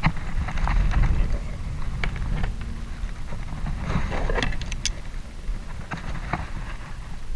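Steady low wind rumble on the microphone, with scattered knocks and clicks from gear being handled against a plastic kayak's hull. The knocks cluster about four to five seconds in.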